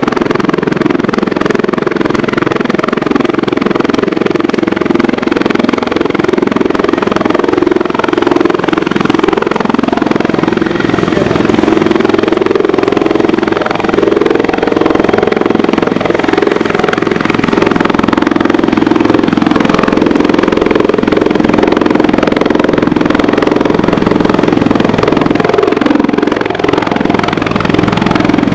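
Border Guard search-and-rescue helicopter hovering low, its rotor chop and turbine running loud and steady.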